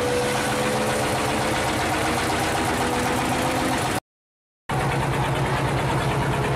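Boat engine running steadily, its pitch drifting slightly upward at first. The sound cuts to silence for under a second about four seconds in, then a steady engine note with a strong low hum resumes.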